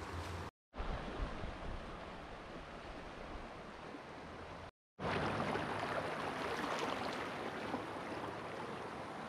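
Steady rush of river water flowing over rocks, cutting out abruptly twice for a fraction of a second.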